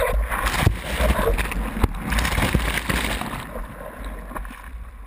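Broken wave's whitewater rushing and splashing over the nose of a surfboard, with a few sharp knocks of water against the board-mounted camera and a low rumble. It starts suddenly and eases off near the end.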